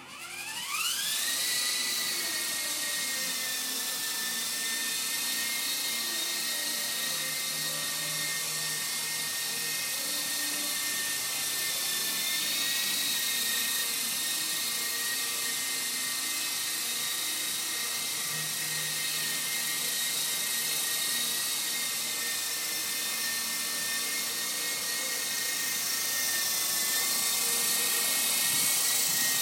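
A Lama micro radio-controlled helicopter's electric motors and rotors spinning up, with a rising whine over the first second or two. It then holds a steady high whine as it lifts off and flies.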